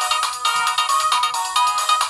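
Samsung Gravity 2 (SGH-T469) phone playing one of its built-in polyphonic ringtones, a busy electronic melody of quick notes that change several times a second.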